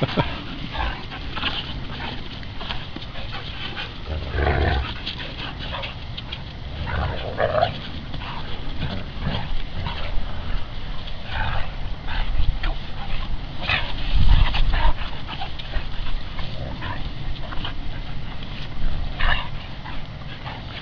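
Dogs play-fighting, giving short scattered yips and vocal noises, with a few low thumps now and then.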